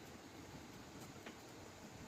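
Near silence: faint steady hiss with a few soft clicks, one right at the start and two more about a second in.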